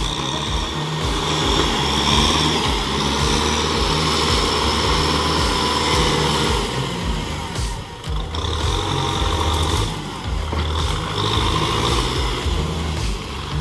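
Kubota M6040SU tractor's diesel engine running under load as its front blade pushes wet mud and soil, with short dips in level about eight and ten seconds in.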